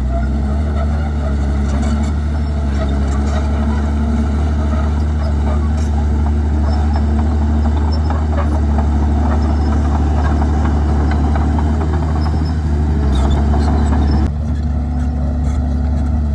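Komatsu D51PX bulldozer's diesel engine running steadily under load, with a dense crackling clatter over it. About fourteen seconds in, the clatter drops away suddenly while the engine keeps running.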